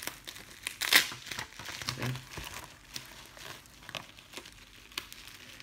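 Plastic bubble wrap crinkling in the hands as a bubble-wrap bag is handled and opened, in irregular crackles, the loudest about a second in.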